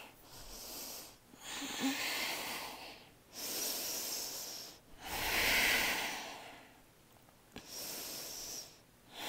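A person's slow, deep breathing while holding a yoga pose: about five long breaths in a row, each a second or two long, with short pauses between them.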